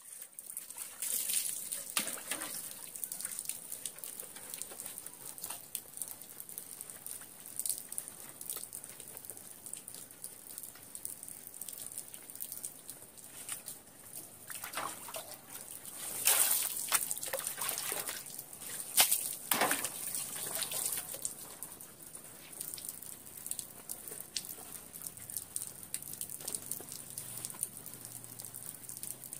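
Water running and splashing, a steady hiss with louder splashes a little past halfway, as a person bathes with water outdoors.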